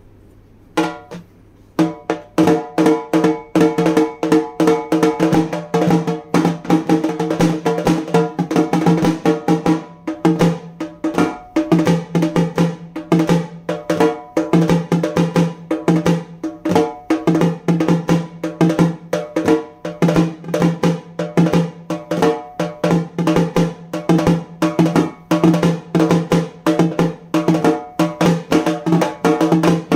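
Halgi, a Maharashtrian frame drum, beaten fast with sticks in a dense, driving rhythm, its skin ringing at a steady pitch under the sharp strikes. The drumming starts about two seconds in after a short pause.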